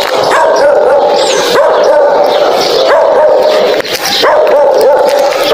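Dog barking and yelping loudly, one cry after another without a break.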